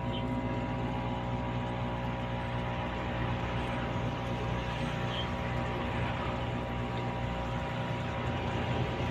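Aquarium pump humming steadily, a constant machine drone with a hiss over it.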